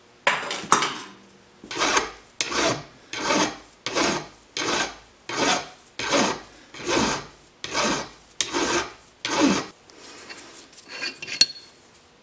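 Flat hand file worked back and forth across a small metal rod clamped in a bench vise: about a dozen strokes at a steady pace of roughly one and a half a second, stopping a couple of seconds before the end, when only a few faint clicks follow.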